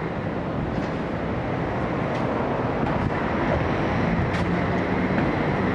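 Steady city street ambience: a continuous low rumble of traffic, with a few faint brief clicks.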